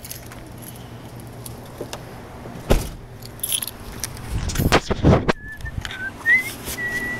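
Keys jangling while walking. A car door thuds shut about three seconds in, a few more knocks follow, and a few thin high chirps come near the end.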